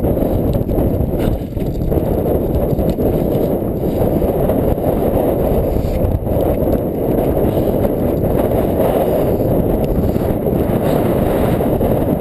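Loud, steady, muffled rumbling rustle of a body-worn GoPro action camera moving through tussock grass, its housing rubbing against grass and clothing as the wearer walks.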